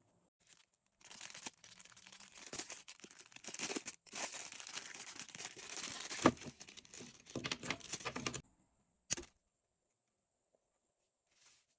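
Packaging being torn open and crinkled by hand for about seven seconds, with a sharp snap about six seconds in, then one short rustle a little after nine seconds.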